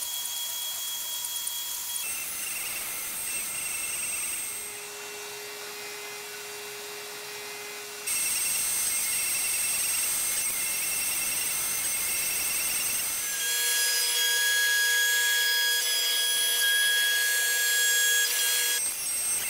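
CNC router spindle running with a high steady whine as its small end mill cuts shallow circular pockets into MDF, over the hiss of a shop vacuum hose held at the bit. The pitch and level of the whine jump abruptly several times.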